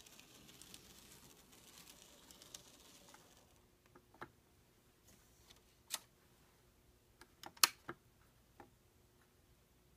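Tiny N scale switcher running on model track: a faint hiss for the first three seconds or so, then several sharp clicks as it moves over the turnouts, the loudest about three-quarters of the way in.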